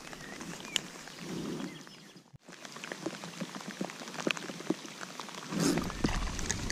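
Light rain falling on pond water, with many small drop taps close to the microphone. The sound drops out briefly a little over two seconds in, and a louder rustle comes near the end.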